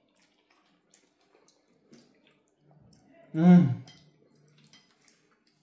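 Faint scattered clicks of forks against ceramic plates and chewing, then about three seconds in one loud, short appreciative "mmm" of a man savouring a mouthful, gliding in pitch.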